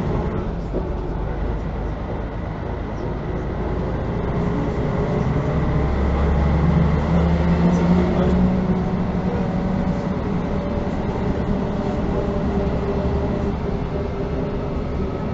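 Mercedes-Benz O405N1 city bus's six-cylinder diesel engine running, heard inside the passenger cabin. Its note rises in pitch and grows louder about six seconds in, then holds steady.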